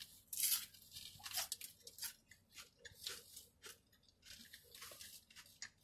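A person biting into and chewing a crunchy Doritos Locos taco shell: a run of irregular crunches, the strongest about half a second in.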